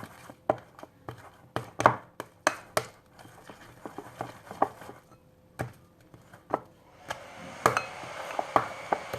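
Irregular sharp knocks and clacks of a utensil against a mixing bowl as slime is stirred. From about seven seconds in, a steady hiss runs under the knocks.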